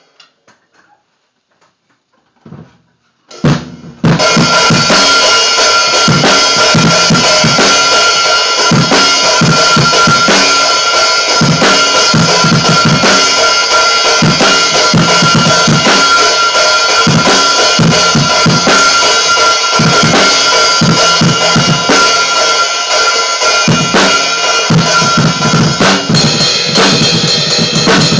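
Acoustic drum kit played hard: bass drum and snare hits under a constant wash of ringing cymbals, starting about four seconds in after near quiet and keeping up a fast, busy beat.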